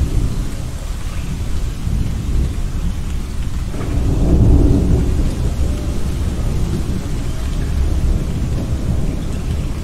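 Thunderstorm: a continuous low rumble of thunder over steady rain, swelling to its loudest about four to five seconds in before settling back.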